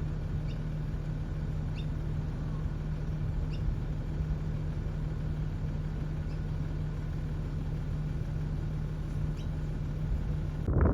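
A steady low machine hum over a rumbling background, with a few faint short high ticks scattered through it.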